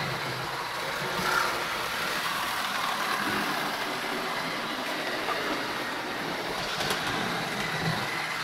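Model trains running on the layout: a steady whir of small electric locomotive motors and wheels rolling on the rails, with a faint, even high hum.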